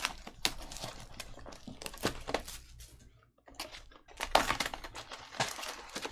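Crinkling and tearing of trading-card pack wrappers and box cellophane as sealed packs are opened by hand, in quick irregular crackles and rustles.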